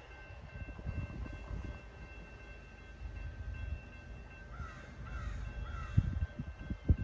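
Grade-crossing warning bell ringing steadily as the crossing gates come down, over a low rumble with a couple of sharp thumps near the end. A bird calls three times about four and a half seconds in.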